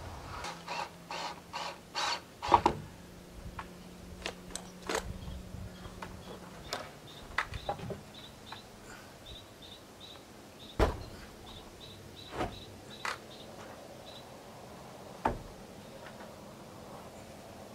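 Hammer blows and knocks on wooden roof framing: a quick run of strikes, the loudest near its end, then a few single knocks spaced apart. A bird chirps faintly in the middle.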